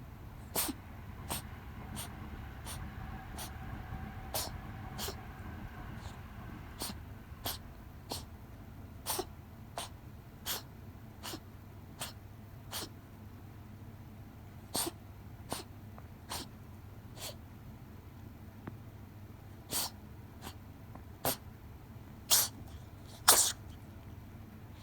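A cat sneezing over and over in a long fit: short sharp sneezes come less than a second apart, with a couple of brief pauses, and the last two near the end are the loudest.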